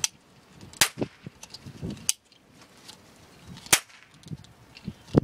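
Toy cap gun firing caps: four sharp cracks spaced a second or more apart, with quieter clicks between shots as the caps are turned by hand for the next shot.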